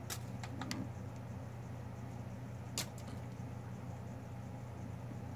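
A few faint clicks of a bamboo toothpick being handled where it pins a plant into a vivarium's foam background, over a steady low hum.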